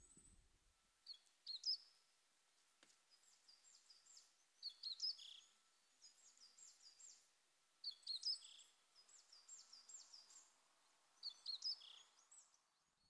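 A small songbird singing faintly: a short high-pitched phrase of gliding notes ending in a quick run of short notes, repeated four times about every three and a half seconds.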